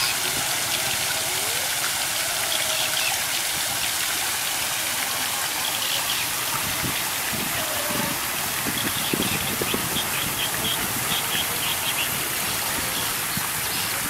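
Fountain jets splashing steadily into a basin, an even hiss of falling water.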